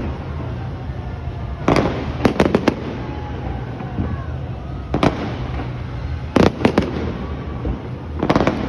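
Fireworks going off in quick clusters of sharp bangs, a few bangs per cluster, a cluster every two to three seconds, over a steady low rumble.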